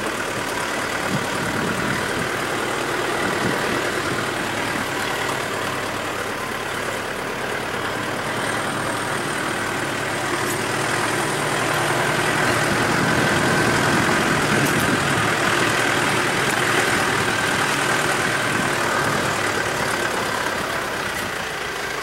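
A vehicle's engine running steadily while driving slowly, with road and wind noise, getting a little louder about halfway through.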